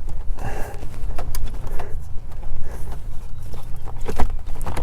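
Scattered plastic clicks and knocks from the center console cup holder trim being handled and pressed back into place.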